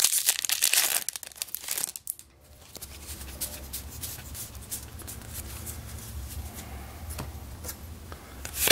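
Foil wrapper of a Magic: The Gathering Modern Masters 2017 booster pack being torn open, with crinkling for about two seconds. After a short pause come faint rustles and clicks of the cards being handled.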